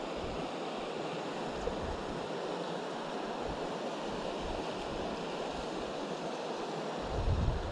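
Steady rush of river water, with gusts of wind buffeting the microphone that grow strong near the end.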